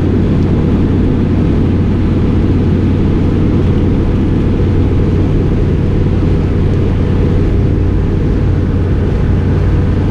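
Steady low drone of road, engine and wind noise inside a moving 1993 Chevy Camaro Z28's cabin, with the heater fan blowing and the windows being rolled down. Recorded on a GoPro's wind setting, which makes it sound muffled.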